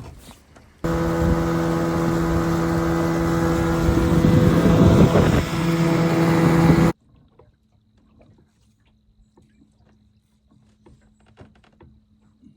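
A boat's motor running loud and steady for about six seconds, cutting in and out abruptly, then quiet with only a faint steady hum.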